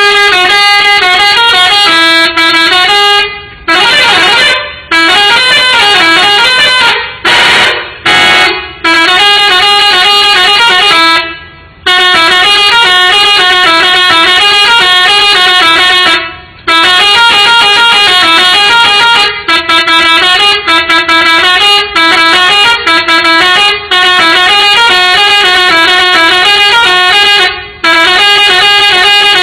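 Six-trumpet MSK "telolet" bus air horn, Pakistani-made, playing a tune: loud stepped notes with several trumpets sounding together, in phrases broken by short pauses.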